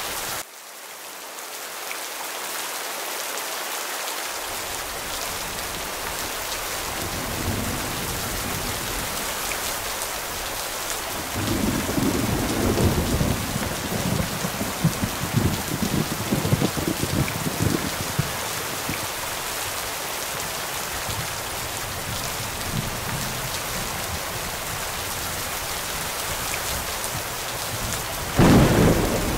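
Steady rain with thunder. A low rolling rumble builds about a quarter of the way in and is heaviest for several seconds around the middle, and a sudden loud thunderclap comes near the end.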